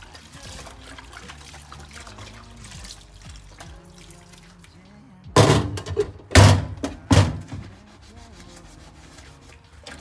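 Washing-up at a stainless steel sink over soft background music: water sloshing, then three loud knocks with splashing a little past halfway as a glass baking dish is rinsed and set down on the steel drainboard.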